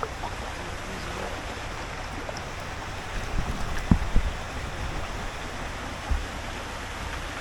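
Steady rushing noise of wind and moving water, with a few low thumps about three to four seconds in and once more near six seconds.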